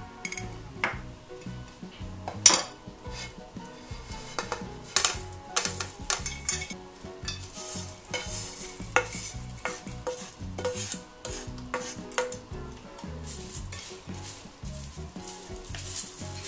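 Small dried anchovies being scraped out of a nonstick frying pan with a wooden spoon into a stainless steel mesh strainer, then stirred in the strainer: a dry, crackly rustle with irregular clicks and knocks of spoon, pan and strainer. The loudest knock comes about two and a half seconds in.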